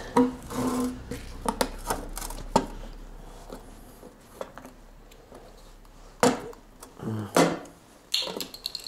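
Clicks, snaps and scrapes of hands prying open the red plastic pull-out spout on a metal motor-oil tin, with two louder knocks about six and seven seconds in.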